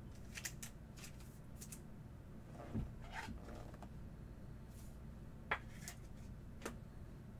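Faint handling of stiff chrome trading cards: a scatter of short clicks and taps as cards are flipped through and set down on a stack, the sharpest about five and a half seconds in, over a low steady hum.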